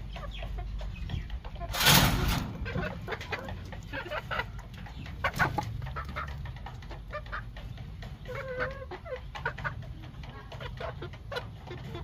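A gamefowl rooster and hen clucking now and then in their pen, with scattered sharp clicks and a brief loud rustling noise about two seconds in.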